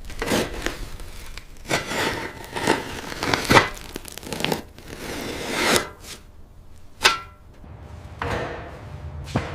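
Irregular knocks, thuds and scrapes of heavy work, about eight separate strikes, with one sharp knock about seven seconds in.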